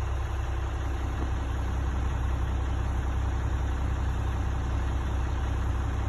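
A concrete mixer truck's diesel engine idling steadily, a low even rumble, with the flowing water of a shallow creek as a faint hiss over it.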